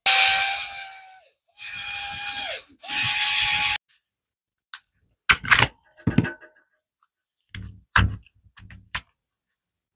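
Cordless screwdriver spinning out the T10 Torx screws of a Bosch 18 V battery case, with three short runs of motor whine whose pitch sags as each run ends. After that come scattered clicks and cracks of the plastic battery housing being prised apart by hand.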